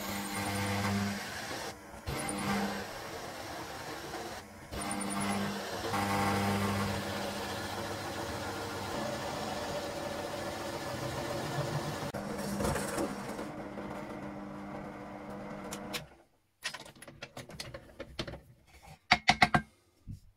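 Benchtop drill press running with a hole saw cutting through a wood block: a steady motor hum under a rasping cutting noise, dipping briefly twice early on. The sound cuts off about three-quarters of the way through, followed by a few sharp knocks and clicks.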